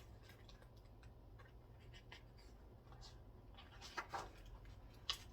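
Faint rustle and a few soft clicks of paper pages being handled and turned, the strongest about four seconds in and again just after five, over a low steady hum.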